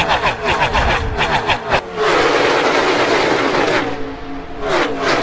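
A pack of NASCAR Cup Series stock cars with V8 engines racing past at speed, one after another, each engine note dropping in pitch as it goes by. From about two seconds in the cars run by as a dense continuous mass, and two more pass near the end.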